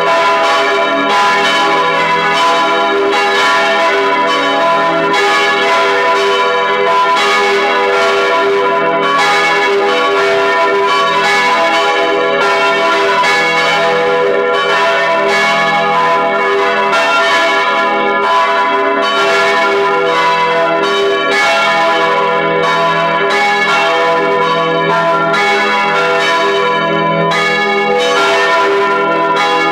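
Full peal of four heavy bronze church bells, tuned e′, gis′, h′ and cis′ and cast in 1949 by the Junker foundry of Brilon, heard up close inside the belfry. The bells swing together, their clappers striking over and over in an irregular overlapping pattern, with a loud, continuous mass of ringing tones.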